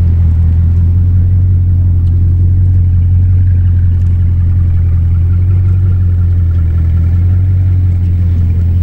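Bugatti Chiron's 8.0-litre quad-turbocharged W16 engine running at a low, steady idle as the car creeps forward at walking pace, with no revving.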